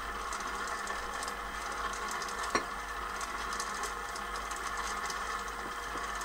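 KitchenAid 7-quart Pro Line stand mixer's DC motor running steadily at its lowest, stir speed, its dough hook turning through dry flour and liquid at the start of mixing pizza dough. There is one sharp click about two and a half seconds in.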